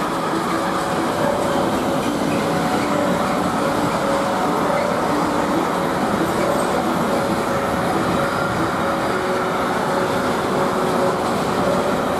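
Intermodal freight train of swap-body and container wagons rolling past at speed: a steady, dense rumble of wheels on rail. Thin whining tones come and go over it.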